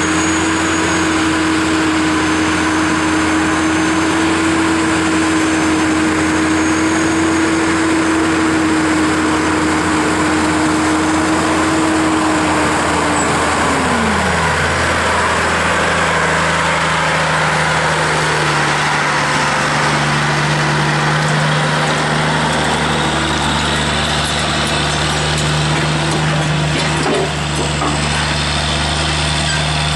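Log truck engine running loud and steady at high speed, then slowing over about a second, about halfway through, to a lower steady speed.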